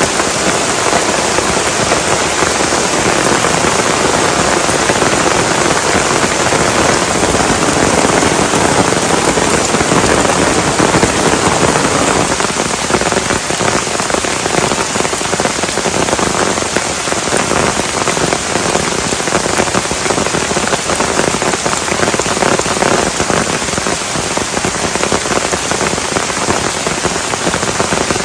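Heavy rain falling steadily, a dense even hiss made up of countless close drop impacts on a surface.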